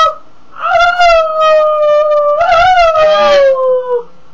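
Pug howling along with a person's howl: one long howl that slides slowly down in pitch and stops about four seconds in, with a second, wavering voice joining in around the middle.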